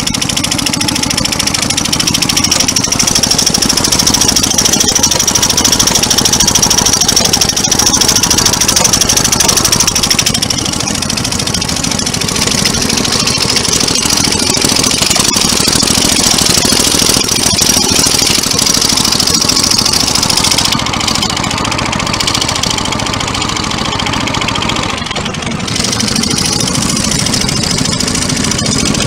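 1915 Wisconsin rudder-model outboard motor with battery ignition running under way: a fast, steady firing beat, with the rush of water from the wake behind it.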